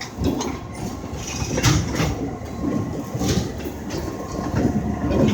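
Freight train cars rolling through a grade crossing: a low rumble with irregular clacks from the wheels.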